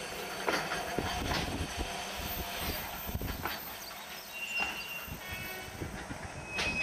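Freight train's container wagons rolling slowly under braking as the train comes to a stop, with scattered knocks and clanks from the wheels and running gear. High-pitched brake squeal sets in from about four and a half seconds in.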